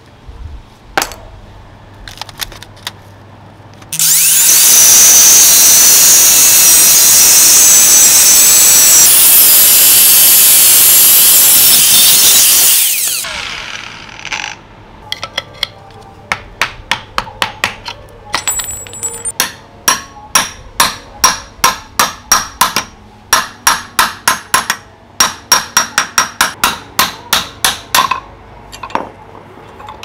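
A power tool runs loud and steady for about nine seconds, then stops. A long series of sharp hammer blows on a chisel follows, driven against a cast-metal motor housing, about two to three a second with short pauses.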